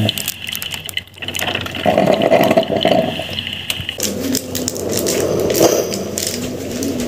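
Drip coffee maker of a 3-in-1 breakfast maker brewing: hot water gurgling through the brewer and liquid running into the glass carafe.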